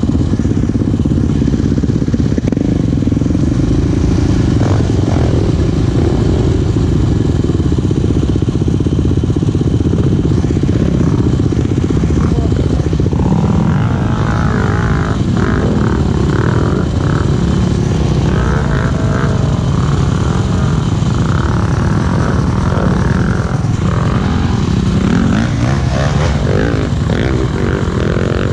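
Enduro dirt bike engines running steadily. From about halfway through, a bike revs up and down again and again as it is worked up a steep gully.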